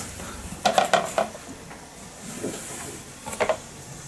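Handling sounds of paper, a cardboard carton and a glass bottle being moved on a blanket: a quick cluster of light taps and rustles about a second in, a faint scrape, then a couple more taps near the end.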